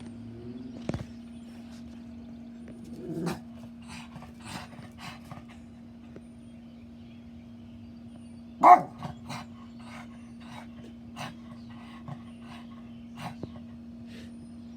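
Pet dog barking at a bird: a low growly woof about three seconds in, then one sharp bark near the middle, with scattered light ticks and a steady low hum underneath.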